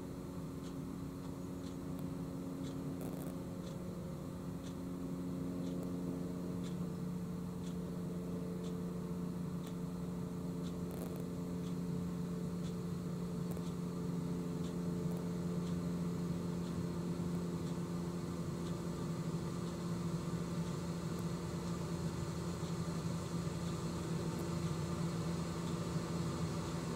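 Small cruiser's engine idling steadily, a low even hum with faint regular ticks over a background hiss, the hiss growing a little toward the end.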